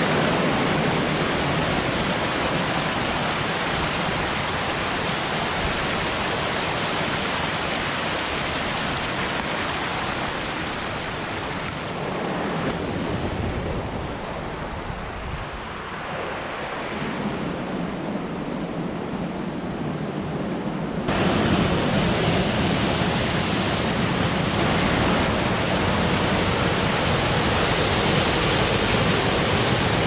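Steady rush of creek water tumbling over rocks and cascades, an even hiss with no separate splashes. It eases a little in the middle and turns suddenly louder about twenty seconds in.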